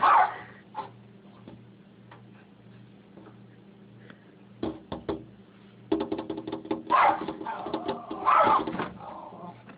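Rat terrier barking at a noise outside the window: one bark at the very start, then two more at about 7 and 8.5 seconds in. Scattered sharp clicks and taps come between the barks.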